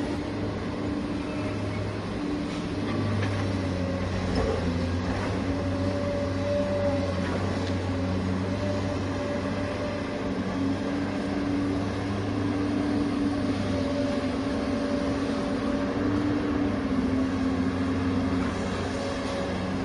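Small electric motors of radio-controlled construction models running with a steady whine that wavers slightly in pitch, with a few faint clicks.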